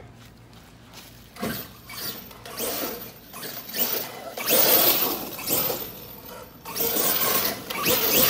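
Arrma Kraton 8S electric RC truck tearing across dry dirt: repeated bursts of tyres spraying dirt and sand, loudest about halfway through and again near the end, with a thin high motor whine on the hardest pulls.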